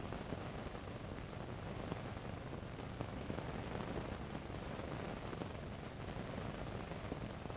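Steady hiss and crackle of an old film soundtrack, with a low hum underneath.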